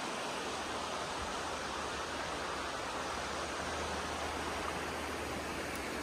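Shallow creek water rushing steadily over rock slabs and small rapids.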